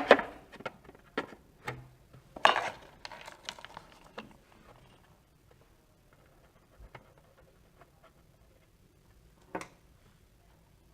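Small metal clicks and light scraping of tiny screws and a small Phillips screwdriver being handled while a USB port board is screwed into a cutting plotter. The clicks come sporadically, loudest near the start, with soft fiddling in between and another sharp click near the end.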